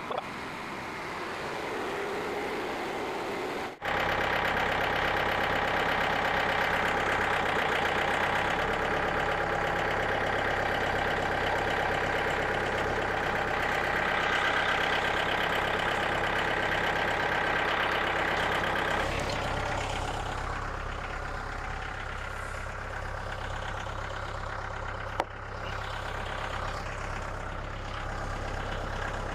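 Small gas engine of a portable band sawmill running steadily, louder for about fifteen seconds while the blade cuts through white pine, then running on quieter.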